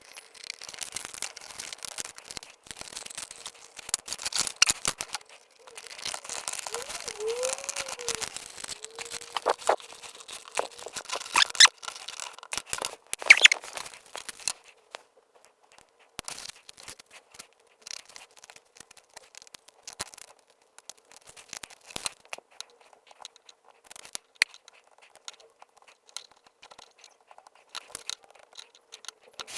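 Small polystyrene model-kit parts being handled and pressed together: scattered plastic clicks and taps with scratchy rustling, and a few louder clicks a little under halfway through.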